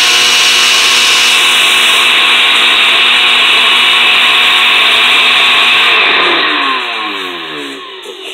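Osterizer 10-speed blender running empty on high speed, a loud steady motor whine. About six seconds in it is switched off and the motor winds down, its pitch falling over about two seconds.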